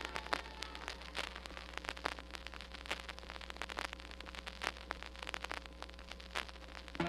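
Vinyl LP surface noise in the silent groove between tracks: scattered crackles and pops over a low steady hum.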